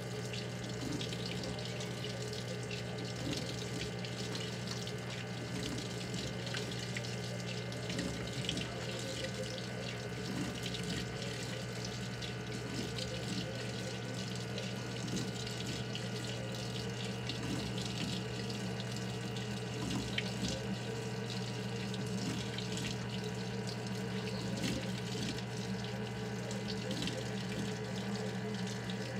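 Maytag top-load washing machine filling: a stream of water pours steadily into the tub onto a load of wet cloths, over a steady low hum.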